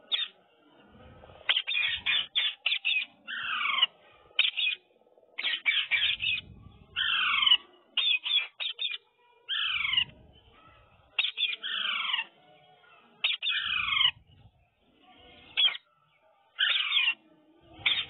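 Rose-ringed (Indian ringneck) parakeet calling: bursts of rapid chattering notes and repeated shrill squawks that slide downward in pitch, with short pauses between them.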